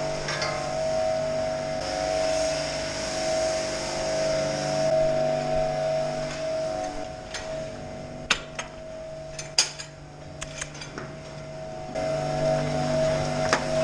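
Steady mechanical hum from barn machinery, with a few sharp knocks about halfway through.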